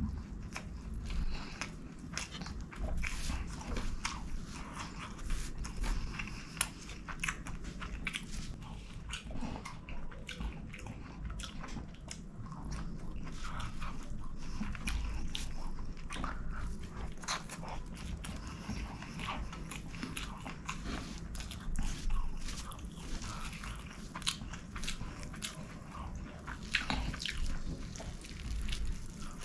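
Close-miked chewing and mouth smacking of handfuls of rice and chicken, with many small wet clicks, and fingers squishing and mixing rice on a paper sheet.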